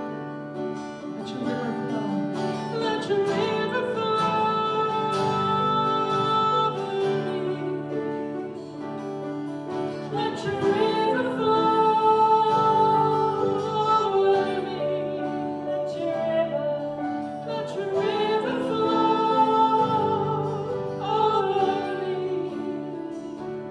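Worship song: a singer with instrumental accompaniment, with long held notes.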